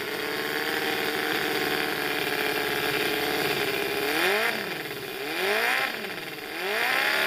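Miniature model engine running steadily, then revved three times by hand on the throttle, its pitch rising and falling with each blip.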